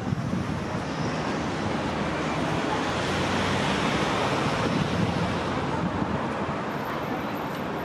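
Steady rushing wind noise on the microphone, with uneven low buffeting. It swells a little about halfway through.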